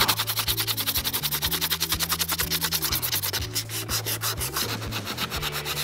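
Hand sanding with 150-grit sandpaper on a plastic car bumper cover: rapid, short back-and-forth strokes scuffing the area around a hole to prepare it for filling.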